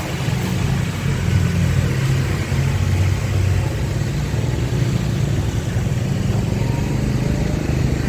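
Motorbike engine running steadily under a pillion rider, with road and wind noise and the traffic around it.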